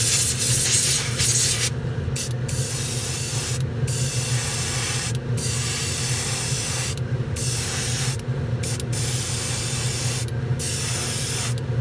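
Airbrush spraying gloss black paint in about seven hissing bursts of one to two seconds, as the trigger is pulled and released, over a steady low hum.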